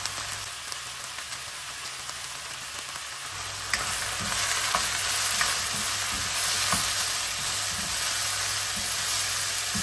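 Pork, chicken, shiitake mushrooms and dried shrimp sizzling in a nonstick wok as they are stir-fried with a spatula, with light scrapes and taps of the spatula against the pan. The sizzle gets louder about three and a half seconds in.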